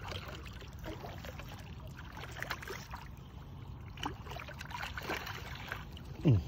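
Water splashing and sloshing in the shallows as a hooked catfish thrashes and a landing net is pushed through the water to scoop it, with a few sharper splashes. About six seconds in, a short loud voice exclamation drops in pitch.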